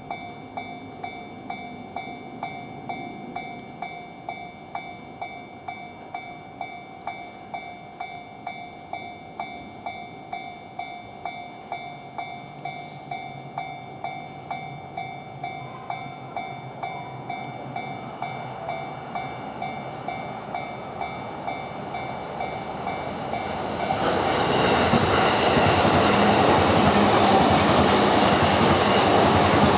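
Level crossing warning bell ringing steadily about twice a second. A train approaches, and from about 24 s it passes over the crossing much louder, its running noise covering the bell.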